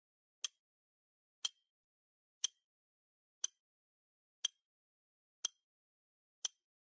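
Countdown timer sound effect ticking once a second: seven short, sharp clock-like ticks, evenly spaced.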